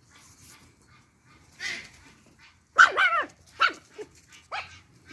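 Four-week-old Pomeranian puppy giving a quick run of four or five high-pitched yips while playing, starting a little past halfway, the first the loudest; a short noisy scuffle comes just before.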